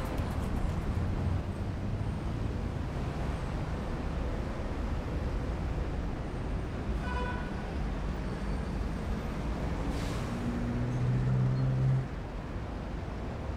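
Night city-street traffic: a steady rumble of passing cars and buses. About seven seconds in there is a brief tone, and from about ten seconds a vehicle's engine drone grows louder, then drops away suddenly at about twelve seconds.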